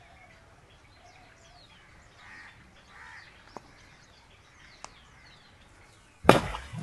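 Faint birds chirping, then near the end a sudden loud splash as an arapaima strikes the live bait at the water's surface.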